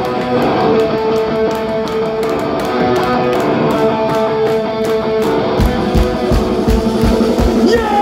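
Rock band playing live: sustained electric guitar notes over regular cymbal ticks, with heavy bass-drum hits coming in about five and a half seconds in.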